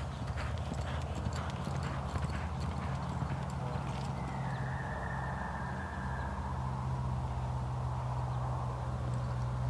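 Horse's hoofbeats clip-clopping, about two to three a second, stopping about four seconds in, over a steady low hum. A faint, drawn-out high tone follows for about two seconds.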